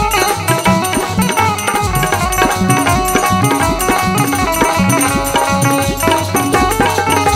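Instrumental break in a Bundeli folk song: a melody line over a steady drum beat, with no singing.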